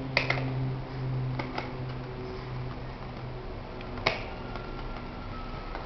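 A few sharp taps and knocks of a ball being kicked by a baby, the loudest about four seconds in, over a steady low hum.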